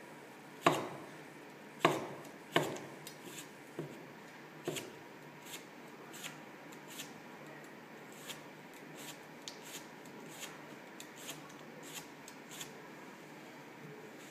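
Chef's knife slicing a cucumber on a wooden cutting board. Three loud knocks of the blade on the board in the first few seconds, then lighter, even taps about once a second.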